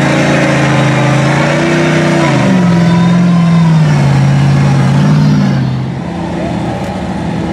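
Engine of a lifted Chevrolet mud truck on tractor tires running steadily as it wades through deep muddy water. Its pitch drops about two seconds in, and the sound fades near the end as the truck moves away.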